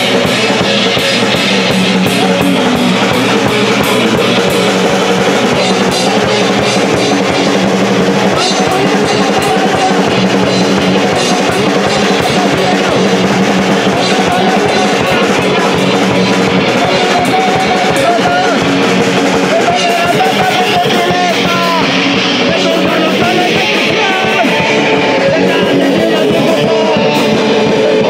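Live punk rock band playing: drum kit and guitar, loud and continuous.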